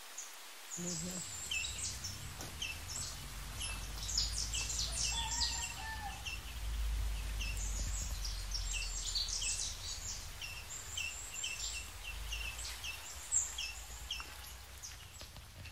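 Several birds chirping with many short, quick calls, one repeating a short note again and again, over a low steady rumble.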